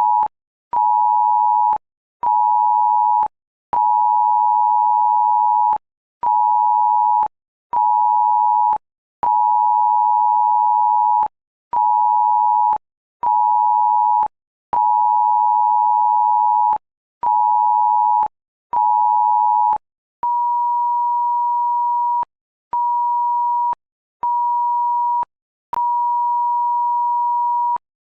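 Synthesised emergency cell-broadcast alert signal in a repeating pattern: one long two-second tone, then two one-second tones, each followed by a half-second gap. For the first part it is a two-tone chord of 853 Hz and 960 Hz. About twenty seconds in it switches to a single 960 Hz tone, slightly quieter.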